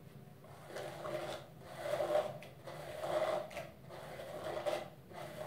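Hairbrush strokes through long, tangled hair: a series of rasping swishes, roughly one a second, as the brush works the tangles out.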